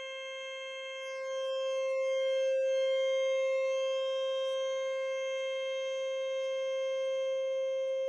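Moog Little Phatty synthesizer holding one steady note on its variable oscillator, a bright buzzy pulse wave. Its tone shifts slightly and gets a little louder between about one and three seconds in as the pulse width changes, then holds steady.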